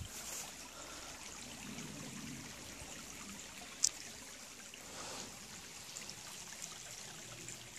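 Small shallow forest brook trickling faintly and steadily. A single short click a little before halfway.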